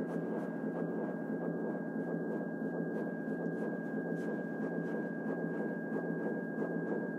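Electronic sound-art drone: a dense, grainy low-to-mid noise with a single steady high tone over it, dotted with faint clicks.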